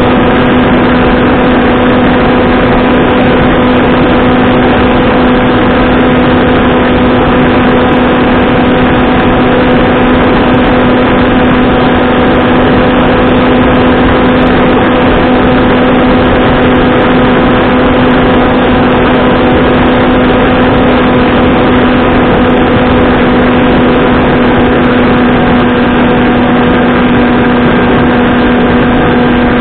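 Electric motor and propeller of a Skywalker Falcon FPV flying wing, picked up by the onboard camera in flight: a loud, steady drone at one unchanging pitch over a constant rushing noise.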